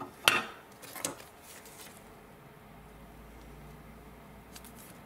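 Metal clanks from handling an opened paint can and its tin lid on a wooden bench: two sharp knocks in the first second, a few lighter taps after, and two faint ticks near the end as the wooden stir stick goes into the paint.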